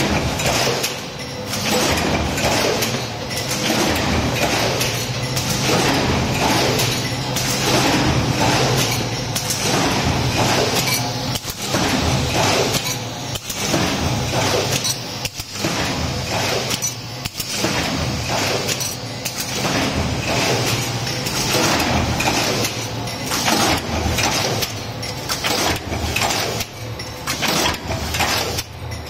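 Automated multi-station stamping press line running: a steady machine hum with frequent metallic clanks and clinks as the dies cycle and sheet-metal blanks are moved between stations.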